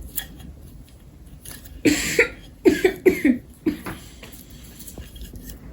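A person coughing, a short burst about two seconds in followed by a few more short coughs.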